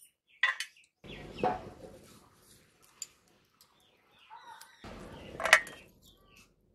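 Crisp snips and rustling as Malabar spinach fruit stalks are pushed against a boti, a fixed curved kitchen blade, and cut, with the sharpest snip about five and a half seconds in. A bird chirps faintly in the background.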